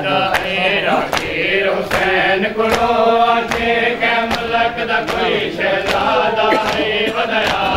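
Men of a mourning group chanting a nauha together in unison, with sharp hand-on-chest matam strikes keeping a steady beat about every three-quarters of a second.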